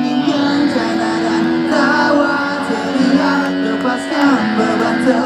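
Live band music with sung vocals, a song played at a rock concert.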